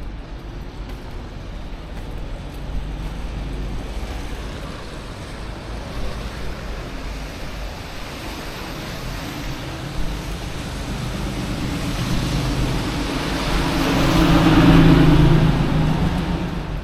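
A motor vehicle approaching and passing over a steady low rumble, its engine and road noise rising to a peak near the end and then fading.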